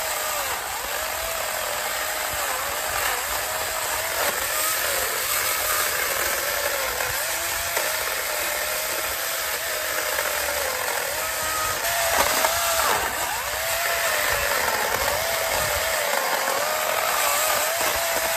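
Cordless 20-volt electric chainsaw with a 12-inch bar cutting through a thick log, about 10 inches across. The motor's whine dips and recovers over and over as the chain works through the wood.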